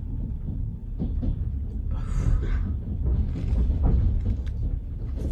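Steady low rumble of a moving passenger train, with a harsh breath out about two seconds in after a gulp of straight vodka, then sniffing at a piece of bread to chase it.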